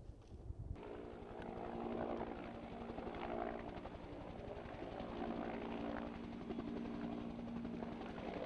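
Firefighting helicopter with a water bucket slung beneath it, flying past. Its rotor beats in a fast, even chop, with a steady whine of engine and gearbox over it. The sound comes in under a second in.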